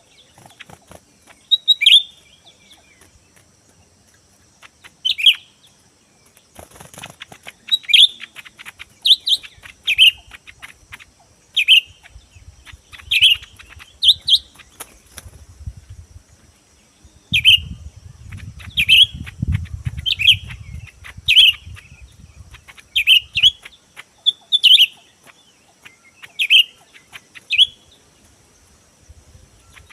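A bird calling with short, sharp, falling notes, repeated about once a second with a few brief pauses.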